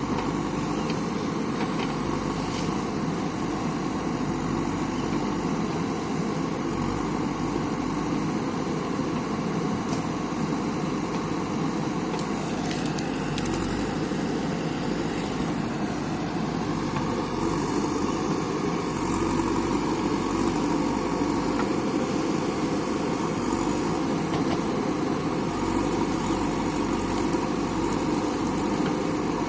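Diesel engine of a JCB backhoe loader running steadily, a little louder from about two-thirds of the way through.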